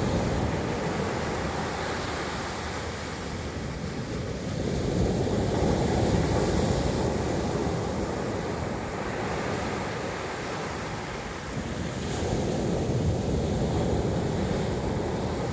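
Sea surf: waves washing in and drawing back, swelling and ebbing every five or six seconds, with some wind on the microphone.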